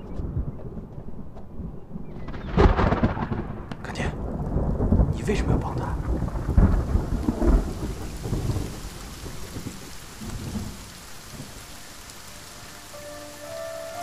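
Thunder rumbling in heavy rolls, with rain setting in a few seconds in as a steady downpour.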